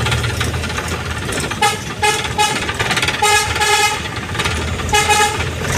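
Vehicle horns honking in clusters of short toots, a few times, over the steady low rumble of road traffic.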